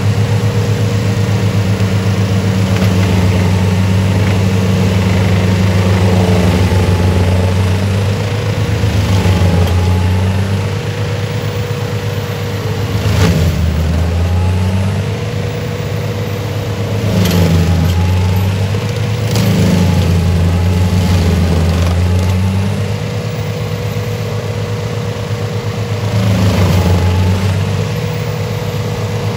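DEUTZ-FAHR tractor's diesel engine running hard to drive an FAE UMM/DT 225 forestry mulcher, whose rotor chews through the branches of a felled avocado tree. The engine note sags and recovers several times as the rotor bites into wood, with a few sharp cracks of wood being smashed.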